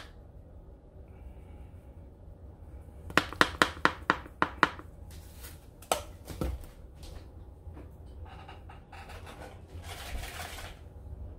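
Plastic garlic powder shaker shaken over a steel mixing bowl: a quick run of sharp clicks, then a single knock and some faint rustling.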